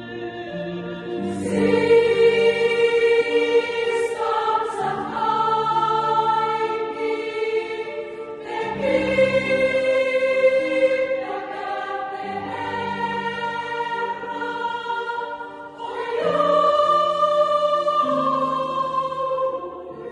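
A choir singing a slow piece in several parts, holding long notes that move together in harmony, in phrases of a few seconds each.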